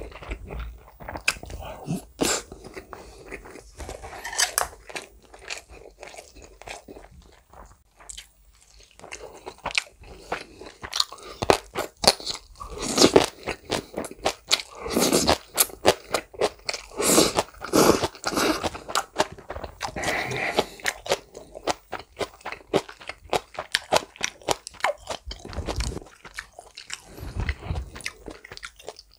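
Close-miked chewing of chicken-mayo rice and green onion kimchi: wet, crunchy mouth sounds in an irregular run, busiest and loudest in the middle.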